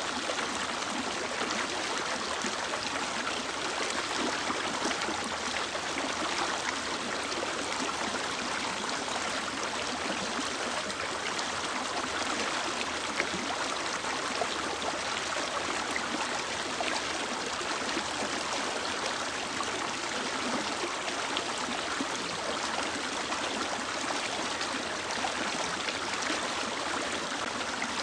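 Mountain river flowing steadily over rocks, a continuous rushing and gurgling of running water.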